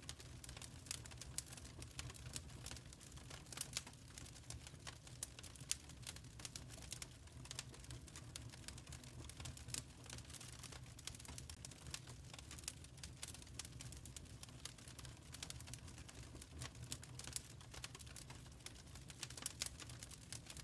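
Wood fire in a fireplace crackling: many irregular small snaps and pops over a steady low rumble of the flames.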